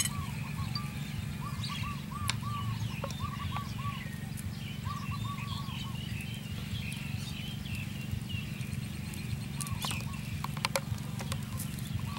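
Birds calling in a series of repeated short arched notes, with higher chirps, over a steady low hum; a few sharp clicks cut in about two seconds in and again near ten seconds.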